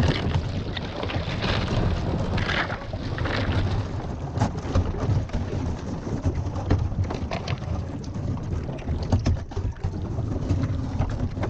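Sea kayak hull pushing through floating brash ice: ice pieces knocking and scraping along the hull with many sharp clicks, over a steady low rumble.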